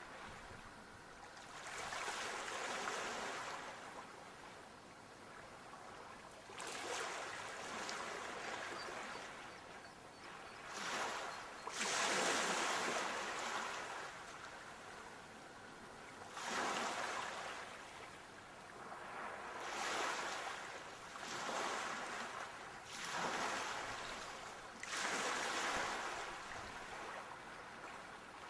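Sea waves breaking and washing up on a shore, one surge after another every few seconds, with the strongest wave about twelve seconds in.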